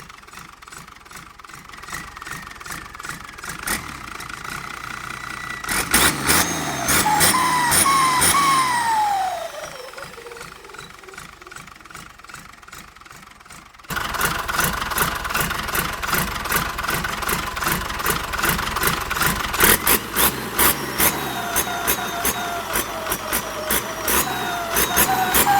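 Diesel engine fitted with a Holset HX35 turbocharger, revved about six seconds in: the turbo whistles, its pitch falling over about three seconds as it spools down. From about halfway through the engine runs again, louder, with a rapid ticking and a rising turbo whistle near the end.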